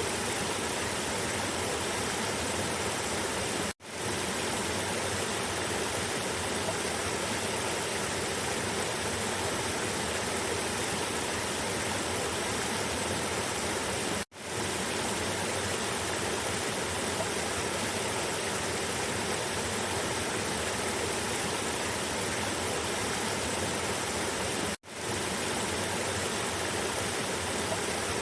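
Cascading river water rushing steadily over rocks, an even rush with no distinct splashes. It cuts out briefly three times, about ten seconds apart, each time fading straight back in.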